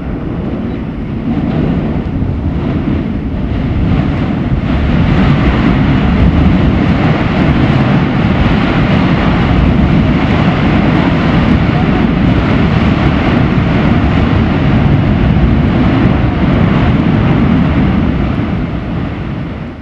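Mount Yasur's volcanic vent erupting, jetting gas and lava spatter in a sustained burst: a loud, steady rushing noise, deepest in the low range, that builds over the first few seconds and fades near the end.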